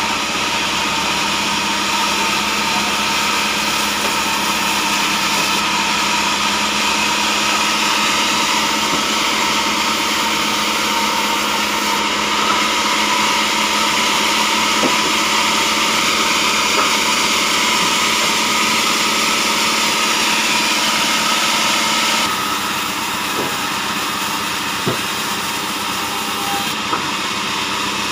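Vertical band sawmill cutting a hard acacia log: a steady mechanical hiss with an engine-like hum underneath. About 22 s in, the hiss eases slightly and the level drops a little.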